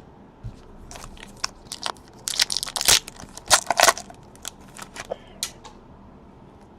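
Trading-card pack wrapper being torn open and crinkled by hand: a run of sharp crackles and rips, loudest in the middle, that dies away near the end.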